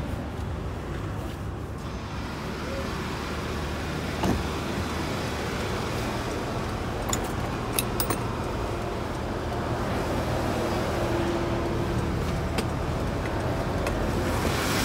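Toyota Hiace van's engine idling steadily, with a few light clicks now and then.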